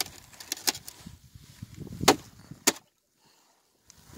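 Thin sheet ice cracking and snapping as it is broken by hand, a series of sharp cracks with two loud snaps about two seconds in; the sound then drops out for about a second.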